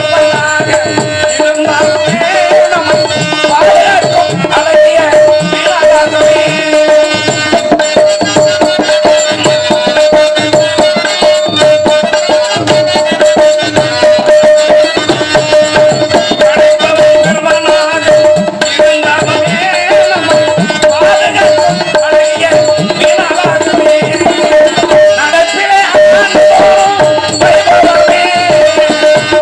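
Live Tamil folk music: hand drums beat a steady rhythm under a continuously held drone note, with a man's voice singing in places.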